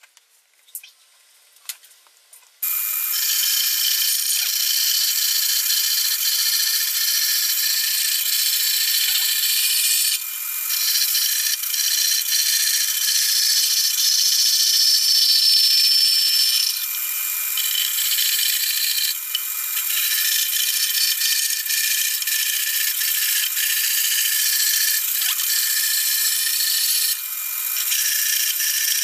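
A few faint clicks, then about two and a half seconds in a benchtop band saw comes in suddenly and runs steadily with a high-pitched whine as it cuts a curve through a wooden block. The sound dips briefly several times as the cut pauses.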